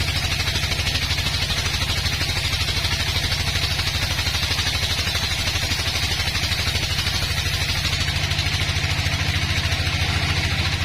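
An engine runs steadily at an even speed, with a fast regular low throb and a constant hiss over it.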